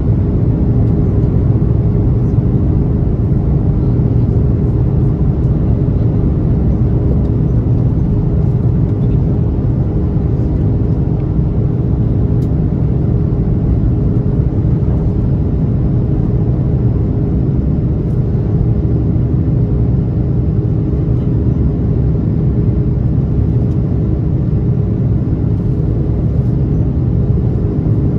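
Cabin noise of an Airbus A330-300 climbing out after takeoff, heard from a window seat over the wing: its Rolls-Royce Trent 700 turbofans at climb power and the airflow make a deep, steady rumble with a steady hum on top.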